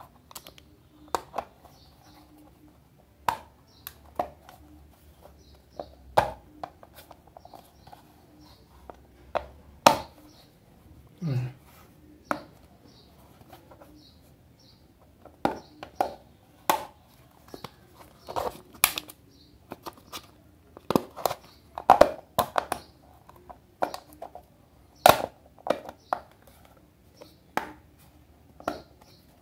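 Hard-shell glasses case handled in the hands, its lid worked open and shut on a broken hinge tied together with cord: irregular sharp clicks and knocks of the shell.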